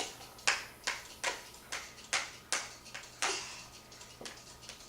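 A quick, even run of sharp clicks or taps, about two to three a second, turning sparser and fainter after about two and a half seconds.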